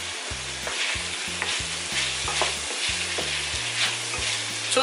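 Diced pork and liver sizzling in a nonstick frying pan while a wooden spoon stirs them. Short scrapes and knocks of the spoon against the pan come through the steady frying hiss.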